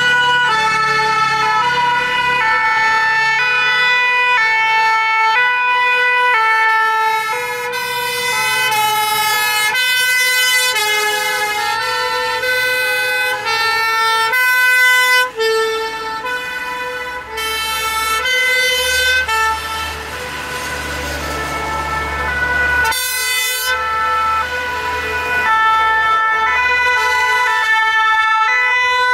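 Several French fire-engine two-tone sirens sounding at once, out of step with one another, over the running engines of the passing fire trucks and vans.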